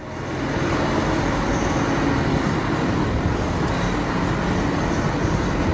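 A large hydraulic excavator's diesel engine running steadily as it works. The engine noise fades in at the start and then holds constant.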